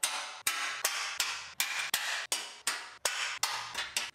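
Steel J-nuts snapping one after another onto the plastic mounting tabs of a pickup truck bumper: a quick, even run of sharp metallic clicks, about three a second.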